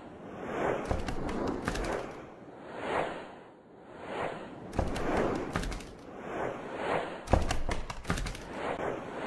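Intro sound effects: a run of whooshes, each swelling and fading, with clusters of sharp hits and low thuds, the loudest hit about seven seconds in.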